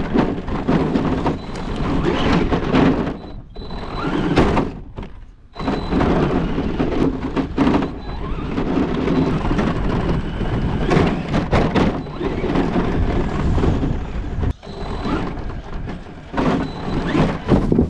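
Radio-controlled cars (a brushless Arrma Senton truck and an Air Hogs 4x4) driving and colliding: a continuous rush of tyres and motors with repeated thuds of impacts. The sound cuts off abruptly several times.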